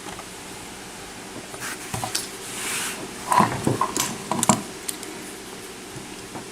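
Scattered small metallic clicks and taps, with a soft scrape near the middle, as a picked-open Tesa padlock is handled to start taking it apart.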